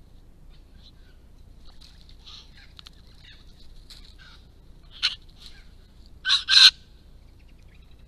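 Honeyeaters calling: scattered short chirps and chatter, a sharp call about five seconds in, then two loud harsh calls in quick succession, the loudest, about a second and a half later.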